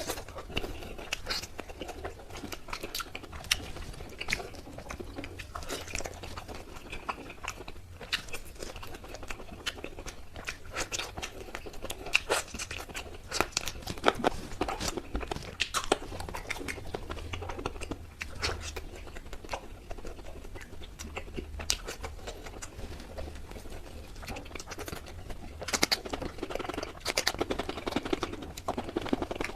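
A person biting and chewing tandoori chicken close to the microphone: a steady run of irregular small wet clicks and crunches, a little louder in a few spots.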